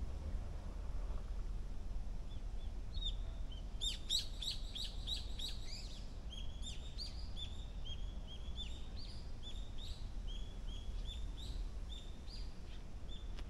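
A bird chirping in a quick, continuous run of short falling notes, starting about three seconds in and going on for around ten seconds, over a low steady rumble.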